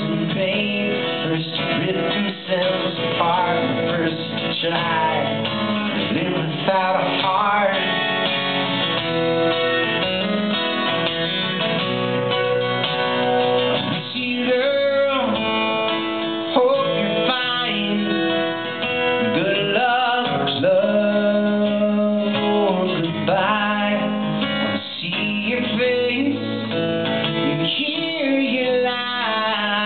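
Solo steel-string acoustic guitar strummed steadily through a live song.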